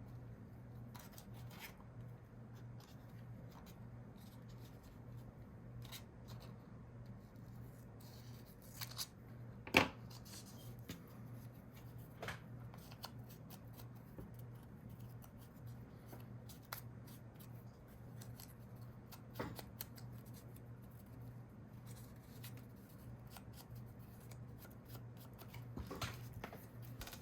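Scissors snipping through book-page paper in short, scattered cuts, with a sharper knock about ten seconds in, over a steady low hum.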